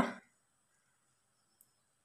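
Near silence: faint room tone after a spoken word trails off, with one tiny tick about one and a half seconds in.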